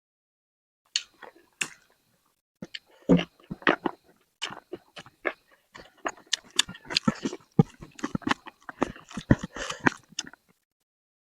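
Close-miked chewing and biting into spicy chicken: a dense run of short clicks and crunches starting a few seconds in and stopping shortly before the end.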